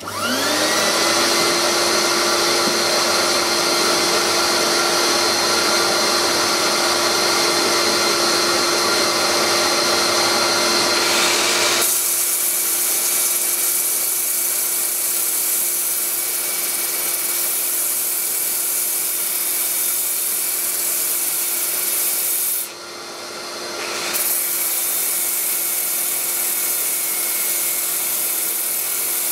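A motor spins up at the start and then runs with a steady hum: the workshop dust extractor being switched on. From about twelve seconds in, a drill-driven sanding disc rubs against the spinning mulberry-wood lid on the lathe, adding a hiss. The hiss drops out briefly about two-thirds of the way through as the disc is lifted off.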